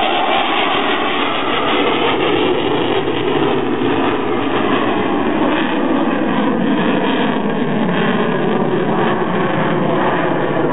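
Eurofighter Typhoon's twin EJ200 turbofan engines: steady, loud jet noise as the fighter pulls up into a steep climb.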